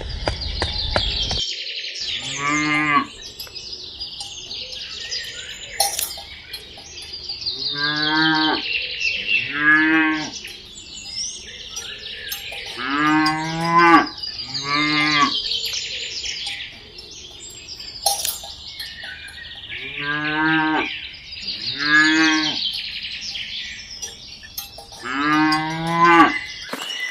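Cattle mooing repeatedly: about eight moos, each about a second long, several coming in pairs. Birds chirp faintly in the background.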